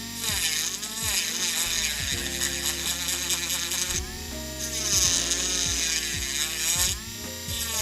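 Electric nail drill running at high speed, its coarse bit grinding through hard 3D acrylic nail art. The motor's whine dips and recovers in pitch again and again as the bit bites under load.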